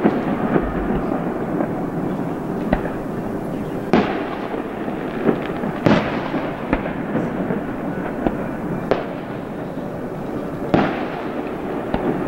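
Aerial display fireworks going off: loud booms right at the start, about 4 s and 6 s in, and near the end, with smaller pops between them, each boom trailing off in a rolling echo over steady background noise.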